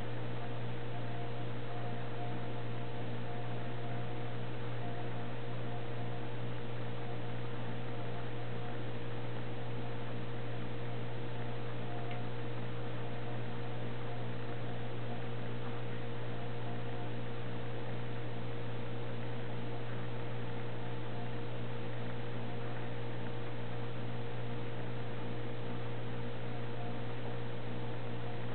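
Steady electrical hum with a faint hiss over it, unchanging.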